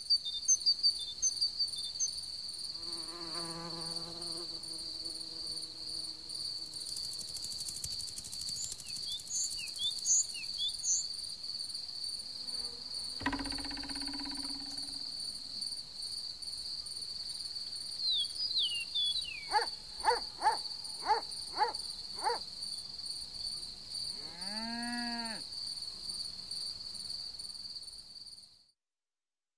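Meadow insect ambience: a steady high cricket trill with short bird-like chirps, and insects buzzing past now and then with a wavering hum. Later a run of five short evenly spaced calls, then one arching call.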